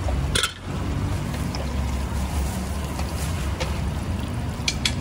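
Gas burner running steadily under a frying pan of oil, a low, even rumble. A sharp metal clink about half a second in, and a couple of light clicks near the end.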